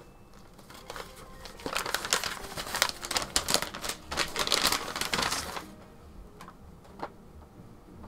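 Brown paper wrapping crinkling and rustling as it is pulled off a boxed figure. A dense burst of crackling runs from about two seconds in to about five and a half seconds, then a few light handling clicks.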